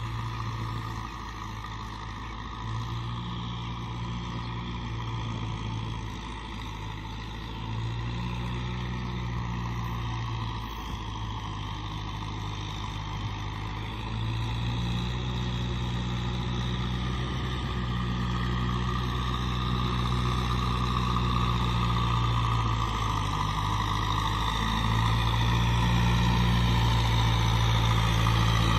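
Kubota M6040 SU tractor's diesel engine running steadily under load while cultivating a flooded paddy, growing louder as the tractor draws near.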